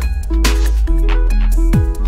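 Background music: an electronic remix with a deep, sliding bass kick, snare hits and a repeating synth figure keeping a steady beat.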